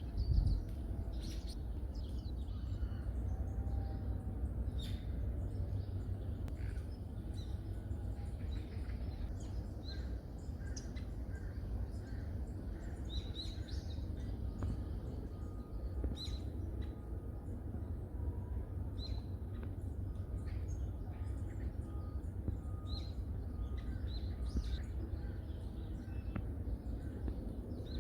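Forest birds calling: scattered short, high chirps throughout, with a run of short, evenly spaced notes from one bird in the middle, over a steady low rumble.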